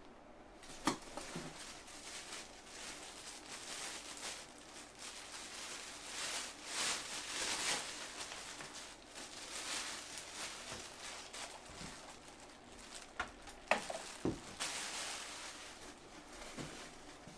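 Rustling and handling of packaging as a new sewing-machine motor is unpacked from its box, with a few sharp knocks, one about a second in and a couple more near the end.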